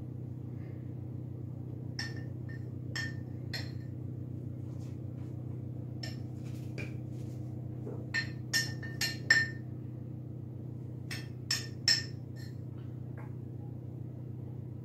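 Light clinks and taps of kitchen containers and a measuring jug being handled while cornflour is measured out, in small clusters, over a steady low hum.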